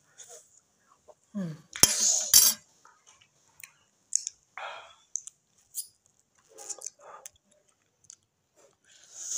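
A metal spoon clinks against a bowl several times in quick succession about two seconds in. Scattered soft clicks and handling sounds follow as a plastic water bottle is lifted and drunk from.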